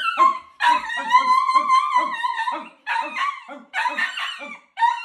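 Alaskan Klee Kai dogs howling and yapping: long, wavering howls broken by short pauses.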